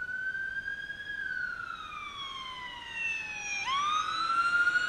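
Fire ladder truck's siren wailing: its pitch rises slowly, falls over a couple of seconds, then sweeps sharply back up about three and a half seconds in and keeps climbing.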